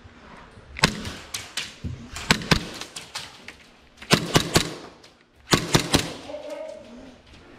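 Airsoft pistol firing in quick groups of sharp snaps: several clusters of two to four shots, about a second, two and a half, four and five and a half seconds in.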